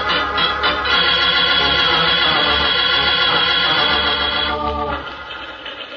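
Organ music bridge: sustained organ chords that fall away about five seconds in, marking a scene change in a radio drama.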